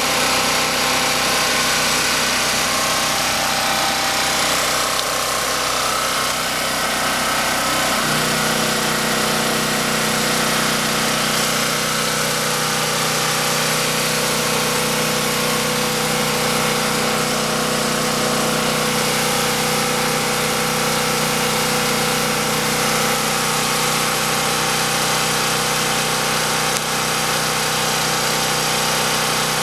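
Champion 4000-watt portable generator's single-cylinder gasoline engine running steadily, echoing in a warehouse, while powering a 1000-watt electric heater. The engine note shifts about eight seconds in, then holds steady.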